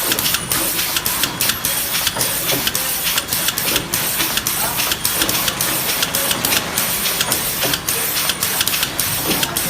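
Automatic cuff-type shrink wrapping machine running, a steady mechanical hiss with frequent sharp clicks and clacks a few times a second.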